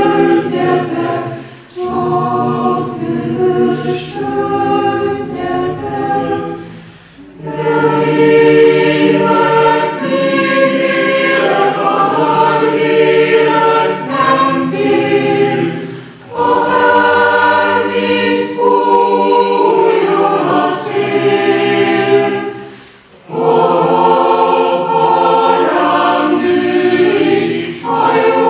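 Chamber choir singing in several phrases, each separated by a short breath pause.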